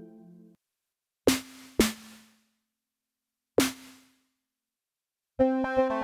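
Martinic AX73 software synthesizer, an emulation of the 1986 Akai AX73 analog polysynth, playing preset sounds. A pad chord fades and cuts off about half a second in, then come three short percussive synth hits, each with a brief low pitched ring. Near the end a pad chord starts, pulsing rapidly in an even arpeggiated rhythm.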